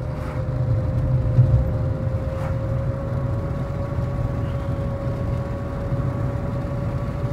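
Interior sound of a 2008 Nissan Altima with a CVT accelerating on the road: a low engine and road rumble with a steady whine that rises slowly in pitch as the car gains speed.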